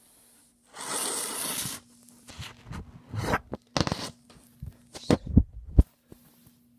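Handling noise as the recording phone is moved around: about a second of rustling, then a run of irregular knocks and rubs with a few low thumps.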